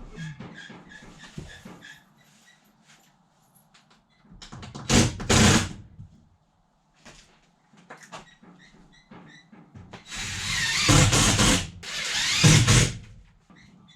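Handheld power tool running in two short bursts, the second longer, with scattered knocks between.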